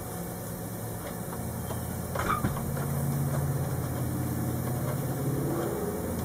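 A steady low machine hum that grows louder about two and a half seconds in and eases near the end, with a single sharp click shortly after two seconds.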